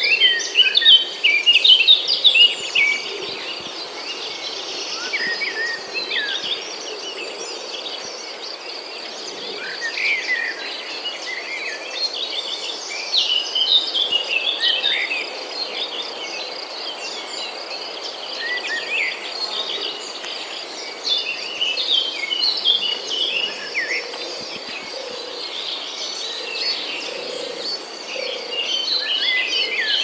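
Black-naped oriole (kepodang) song: clusters of short, varied whistled and chirped notes coming and going, loudest early on. A steady high insect drone runs underneath.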